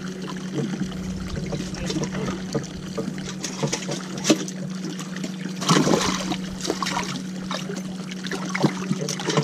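Water trickling and sloshing in a bass boat's livewell as bass are lifted out by hand, over a steady low hum. A louder splash comes a little before six seconds in.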